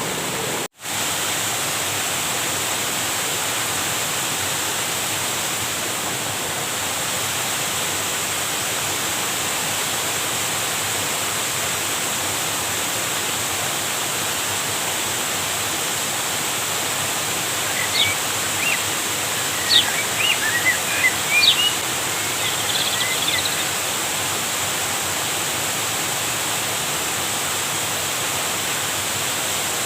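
Steady rushing of flowing river water. It cuts out for an instant near the start, and a few short high chirps come about two-thirds of the way through.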